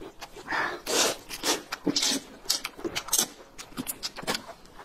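Noodles being slurped and chewed up close: an irregular run of short, noisy sucking and smacking mouth sounds.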